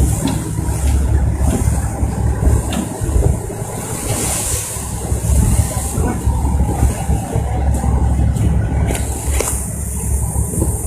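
Steady low rumble on a moving tour boat: the boat's engine running, with wind buffeting the microphone.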